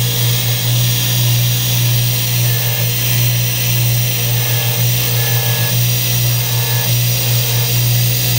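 Jeweller's bench polishing motor running steadily, a small polishing wheel spinning on its tapered spindle while a gold ring is held to it; a loud, even hum.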